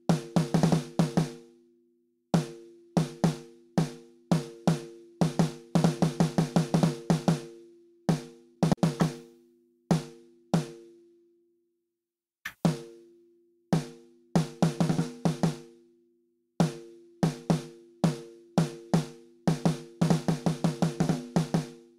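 Soloed snare drum track, triggered snare samples replacing a programmed part, playing fast runs and single hits with short silent gaps. Each hit rings with a pitched tone, and the hits land at uneven levels, the programmed snare being made less machine-flat and more natural.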